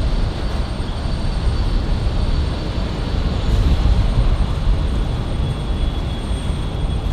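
Jet airliner engines rumbling steadily, a deep roar with a thin high whine above it.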